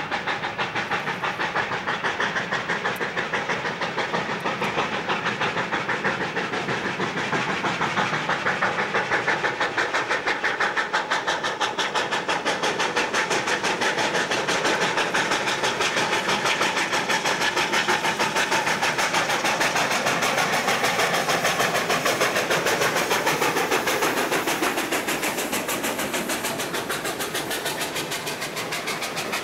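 Sierra Railway No. 28, a Baldwin 2-8-0 steam locomotive, working hard with a rapid, even exhaust beat as it approaches and passes. The sound grows louder toward the middle and eases a little near the end as the freight cars roll by.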